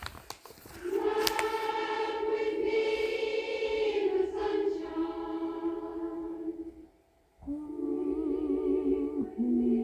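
Choir-like singing of long held notes: one note sustained for about six seconds, a brief break, then more held notes with a wavering vibrato.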